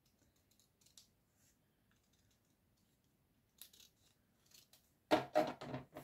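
Scissors cutting card stock in a few faint snips, then a louder clatter for about a second near the end as the metal scissors are set down on the scoring board.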